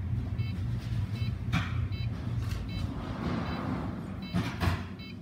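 Fujitsu ESPRIMO desktop PC making an abnormal noise: a steady low drone with a short, high chirp repeating about every half second, and a few sharper knocks partway through.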